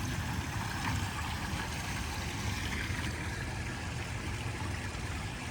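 Steady running water, a shallow flowing stream.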